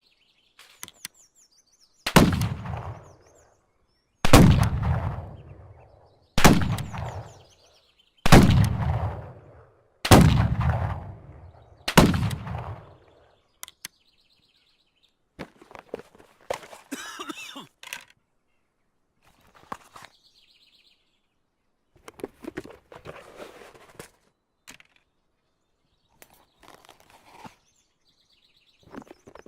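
Colt Army Model 1860 .44 cap-and-ball revolver fired six times, about two seconds apart, each shot with a long fading echo, after a couple of small clicks. Softer scattered mechanical clicks and clatter follow in the second half.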